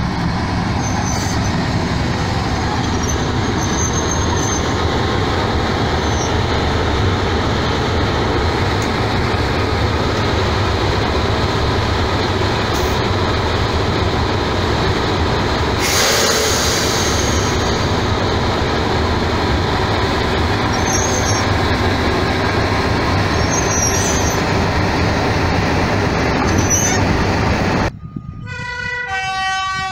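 Class 31 diesel locomotive D5627's English Electric V12 engine idling steadily, with a short hiss of air about halfway through. Near the end the engine sound cuts off abruptly, and a short run of clear tones stepping in pitch follows.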